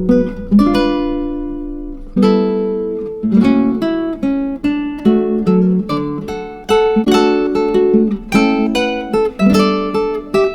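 Background music: an acoustic guitar plucking and strumming chords, each note ringing and dying away.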